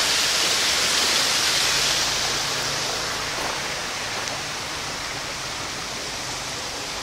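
A steady rushing hiss with no distinct events, easing slightly after about two seconds.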